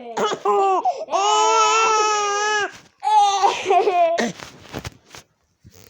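A baby laughing and squealing in high-pitched bursts, with one long held squeal about a second in.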